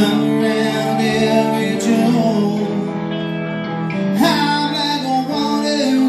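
Live band playing an instrumental passage between vocal lines: electric guitars over bass and drums. A louder chord comes in with an upward slide about four seconds in.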